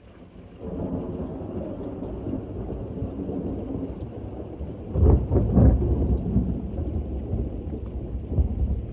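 Thunder rumbling over steady rain. The low roll comes in about half a second in and swells to its loudest claps around five to six seconds in, then rolls on.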